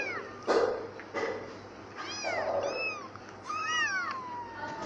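A cat meowing over and over in short, high, arching meows, ending with a longer meow that slides down in pitch. A loud, short noisy burst comes about half a second in.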